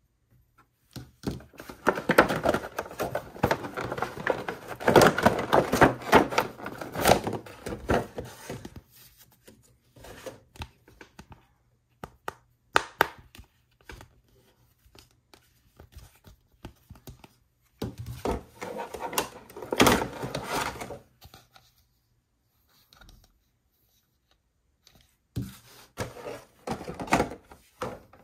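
Toy packaging being handled and opened: crackling, tearing and tapping of plastic and cardboard. It comes in four bursts of handling with quieter pauses between.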